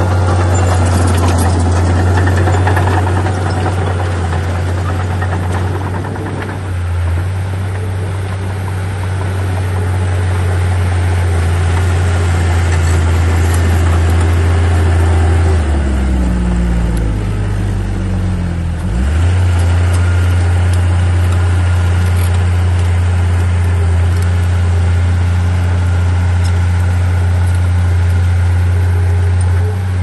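Komatsu D37P bulldozer's diesel engine running steadily. About halfway through, the engine note slides down for a few seconds, then comes straight back up to its working pitch.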